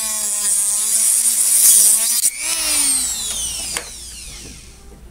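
Small high-speed rotary tool with a cut-off wheel grinding into an old wrench's handle, its motor whining under load. It is switched off a little past two seconds in and the whine falls away as the wheel spins down.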